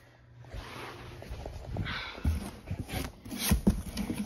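Cardboard box being handled: rubbing and scraping of cardboard, then a run of light knocks and taps in the last second or so.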